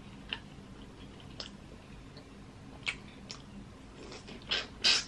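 Close-up eating sounds of biting into butter-sauce-coated seafood: a few soft mouth clicks, then two louder, wet bites near the end.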